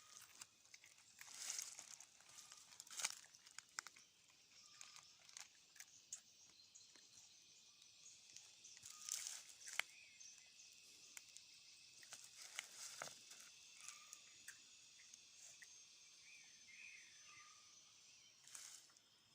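Faint outdoor ambience: a steady, high-pitched insect drone, with scattered short crunches and rustles.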